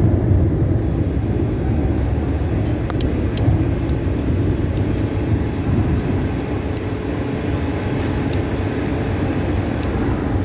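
Steady low mechanical rumble with a few light clicks scattered through it.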